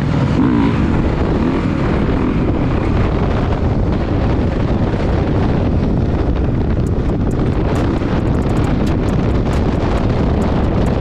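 Loud, steady wind buffeting on the microphone, starting abruptly, with light clicks in the last few seconds.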